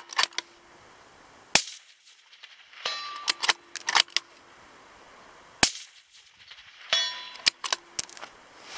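Tikka T3X CTR bolt-action rifle in .223 Remington firing twice, about four seconds apart. About a second after each sharp shot comes a quick run of metallic clicks with a short ring as the bolt is worked.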